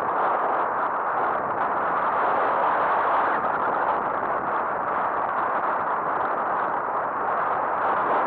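Steady rushing noise of a mountain bike descending a loose gravel trail at speed: wind over a helmet-mounted camera's microphone mixed with the tyres rolling on gravel.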